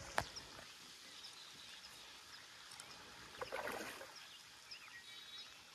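Faint outdoor pond-side ambience: a steady soft hiss with small high chirps now and then, a sharp click just after the start, and a brief rustling, splashy burst about three and a half seconds in.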